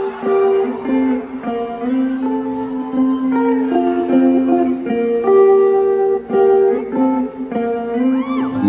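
Live rock band playing a slow instrumental intro on guitar, sustained chords changing every second or so, with no singing.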